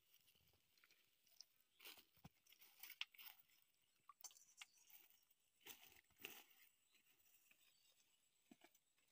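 Faint, irregular crunching footsteps through leafy plants and dry ground, with a few soft rustles of leaves.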